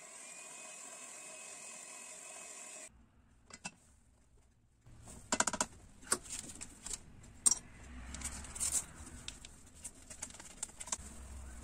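Electric hand mixer running steadily in a glass bowl of batter for about three seconds, then cutting off abruptly. After a short pause come irregular clicks, knocks and rustling as flour and a sachet of baking powder are tipped into a plastic sieve over the glass bowl.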